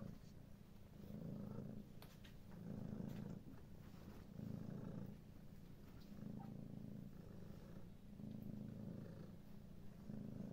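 Domestic cat purring, a low rhythmic rumble that swells and fades with each breath, about every one and a half seconds.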